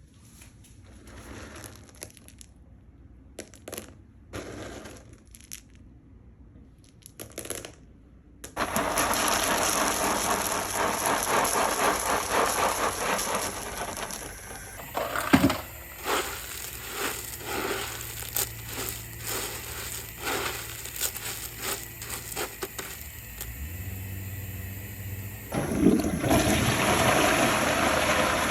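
A toilet flushing with a loud rush of water about eight seconds in, after a few short rattles. Gurgling water with many small cracks and clicks follows, then another loud rush of water near the end.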